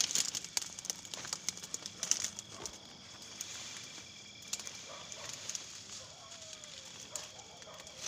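Leaves, stems and twigs rustling and crackling as people push on foot through dense undergrowth, in quick irregular bursts that are busiest in the first few seconds.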